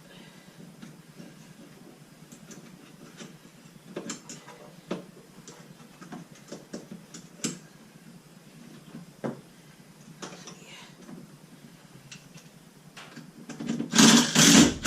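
Scattered light clicks and taps of hand tools and small fastener hardware being worked on the lid hinge, with a brief louder clatter near the end.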